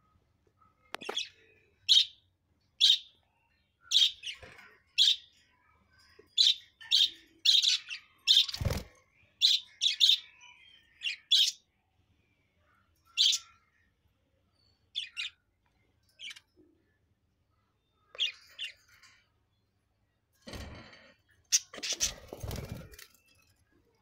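Pet budgerigars chirping in their cage: short, high calls about one a second for the first twelve seconds, then more sparsely. A single thump comes a little before the middle, and a burst of rustling a few seconds before the end.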